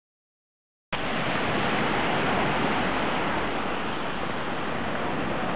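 Small Black Sea waves breaking and washing onto a sandy beach, a steady rushing surf. It starts abruptly about a second in, after silence.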